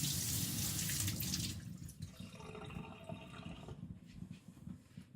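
Water running from a tap for about a second and a half, then stopping; fainter rubbing sounds follow.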